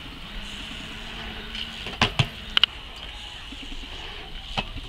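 BMX bike riding in a concrete skatepark bowl: a steady low rolling rumble with a few sharp knocks, a cluster about two seconds in and one more near the end.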